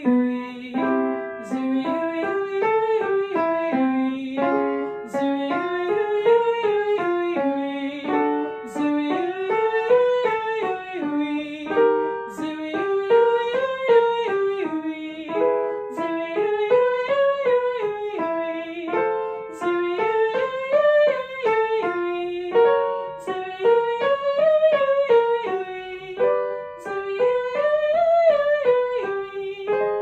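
A woman sings a vocal warm-up exercise to upright piano accompaniment: a short scale figure up and down, repeated about every two seconds, each time a step higher.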